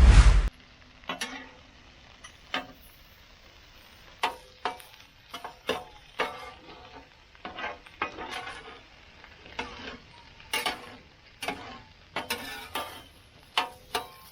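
Diced ham frying on a Blackstone flat-top griddle: a faint sizzle under repeated scrapes and taps of a spatula turning the pieces. A loud thump comes right at the start.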